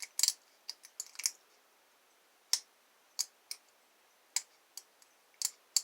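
Lock pick working the security pins of an Abus 888 six-pin lock under tension: about a dozen sharp metallic clicks at irregular intervals, some in quick pairs.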